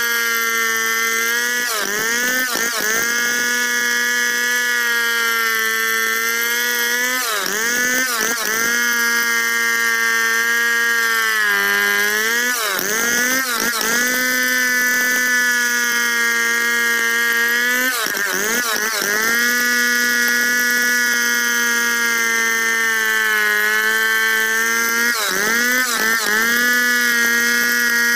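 Two-stroke Stihl chainsaw running at high revs under load as it rips lengthwise through a squared log in a freehand milling cut. Its steady whine dips in pitch and climbs back five times, roughly every five or six seconds.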